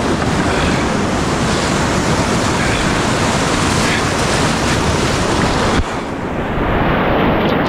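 Whitewater of a river rapid rushing steadily, a loud, even roar of water.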